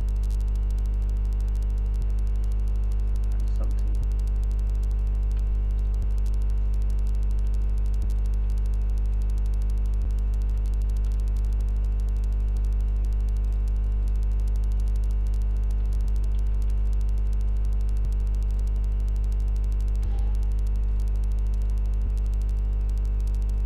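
Steady electrical mains hum with a strong low fundamental and its overtones, unchanging throughout, with a few faint clicks scattered through it.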